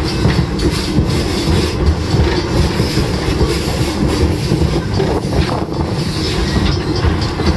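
Steam-hauled train heard from an open passenger car: a steady rumble and rattle of the car running on the rails, with scattered clacks from the wheels.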